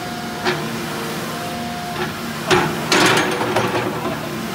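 Backhoe engine running steadily, with a single sharp knock about two and a half seconds in followed by about a second of clanking.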